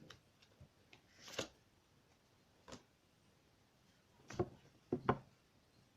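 A few short soft clicks and rustles, tarot cards being handled and laid down, four brief sounds spread across a quiet room, the last two close together.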